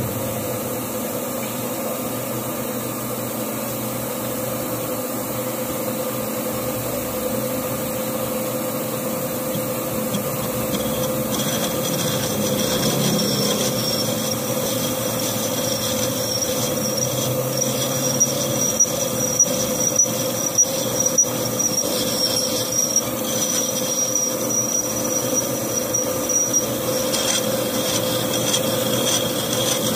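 Metal lathe running with a motorcycle magneto flywheel rotor spinning in the chuck, a steady hum. Partway through, the cutting tool bites into the steel face and adds a high, steady squeal of the cut as the old weld on the starter-clutch seat is turned off.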